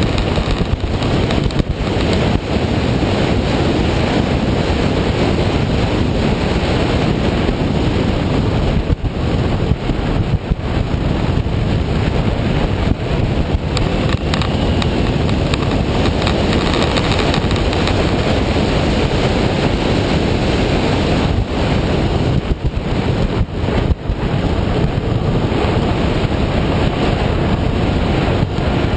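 Loud, steady wind rush over the microphone of a motorcycle riding at speed, dipping briefly a few times.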